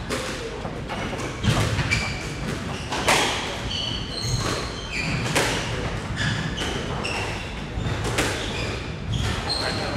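Squash rally: the ball is struck by rackets and smacks off the court walls with a sharp hit about every second, and short high squeaks come from shoes on the wooden floor.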